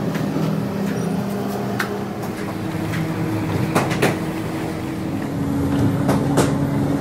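Bakery dough-dividing machine running with a steady mechanical hum, with a few sharp clacks from its mechanism: two about four seconds in and one more a couple of seconds later.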